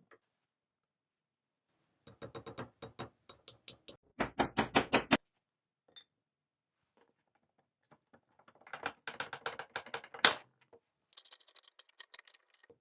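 Rapid runs of sharp metal clicks and rattles from the reassembled Handyman jack's mechanism being worked, with its climbing pins and springs clicking. One click about ten seconds in is the loudest.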